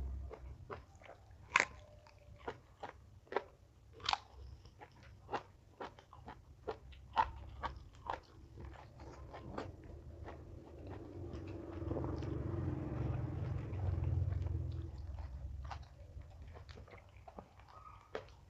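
Close-up biting and chewing of crisp raw vegetables, with many sharp crunches, one every half-second or so. About twelve seconds in, the crunches give way to a louder, softer stretch of chewing that lasts a few seconds.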